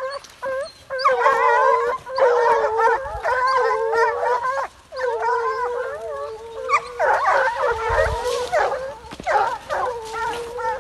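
A pack of American foxhounds baying together in full cry, several long wavering voices overlapping, with a brief break a little before halfway: the hounds giving tongue on a deer's trail.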